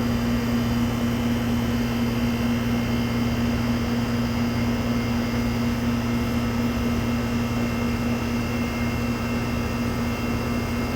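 2008 Goodman GSC13 3-ton air conditioner condensing unit running just after start-up: its Copeland reciprocating compressor and condenser fan make a steady hum.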